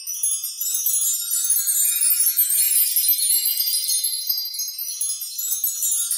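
High, glittering chimes and tinkling bells of a logo-intro sound effect, all shimmer with no low notes.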